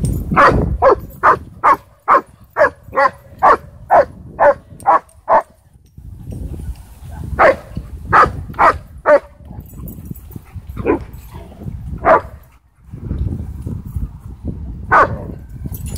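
A dog barking in play with other dogs: a rapid run of about a dozen barks, roughly two a second, then after a pause a few more barks in a group of four, then two, then one.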